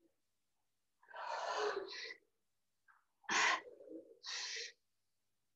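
A woman breathing hard from exertion: forceful, airy breaths in two clusters, about a second in and again about three and a half seconds in.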